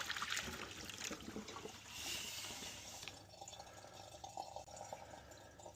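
Water poured into a furnace's condensate drain port, running and trickling through the drain line as it is flushed to clear a clog. It is strongest in spells during the first three seconds, then eases to a quieter trickle.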